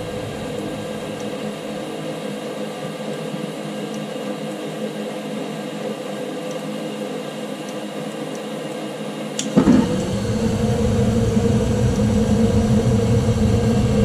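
Amana 97% gas furnace starting up: a steady motor hum while the hot surface igniter heats, then about nine and a half seconds in the gas burners light with a sudden whoosh. A louder, steady low rumble of burning gas then joins the hum.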